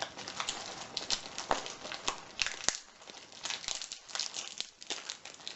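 Packaging being handled and unwrapped, with irregular crinkling and crackling and scattered sharp ticks.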